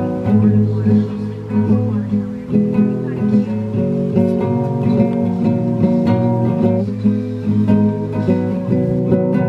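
Background music led by strummed acoustic guitar, moving through a chord change every second or so.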